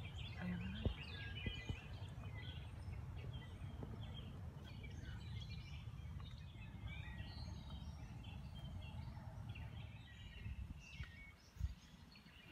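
Small birds chirping and singing over a steady low rumble, with two sharp knocks, one about a second in and one near the end.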